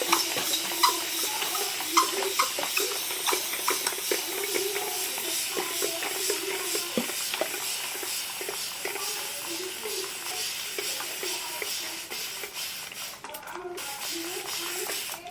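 Water running from a tap into a sink, a steady hiss with small splashes and knocks; it drops out briefly about thirteen seconds in.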